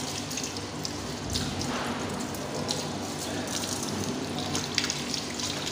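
Tap water running and splashing into a steel sink as hands rub and rinse excess wet gypsum plaster off a wax denture set in a dental flask. This is the washing-off of the stray plaster while it is still wet.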